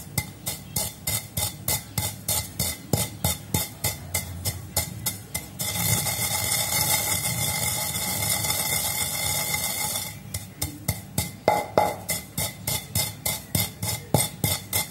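Wooden pestle pounding roasted whole spice seeds (mustard, fenugreek, cumin, fennel) in a clay mortar, quick regular thuds about four a second. After about five seconds the thuds give way to a steady rubbing sound for about four seconds, then the pounding starts again.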